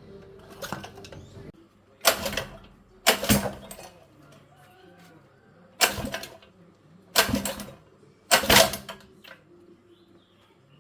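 Five loud, sharp knocks or clanks, irregularly spaced about one to three seconds apart, each ringing briefly.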